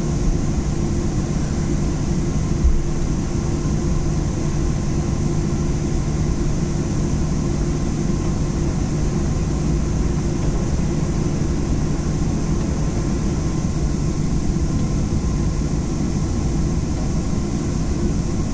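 Airliner cabin noise as the plane taxis: the engines run with a steady hum and a faint high whine, unchanging throughout.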